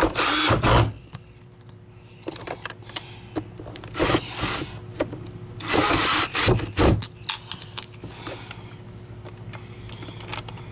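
Power screwdriver driving screws back into a vacuum's plastic bottom plate, in several short runs of the motor, with clicks and handling noise between.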